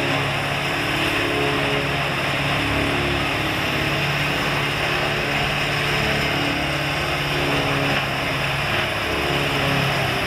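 Morbark tub grinder running under load: a steady diesel engine drone with the dense rattle of wood being ground in the tub.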